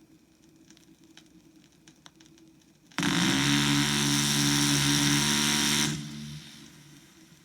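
One sustained burst of automatic gunfire from a rapid-fire aircraft gun, about three seconds long, fired so fast that it blends into a steady buzzing tone; it starts about three seconds in and cuts off sharply, with a short fading tail. Faint record crackle is heard in the gap before it.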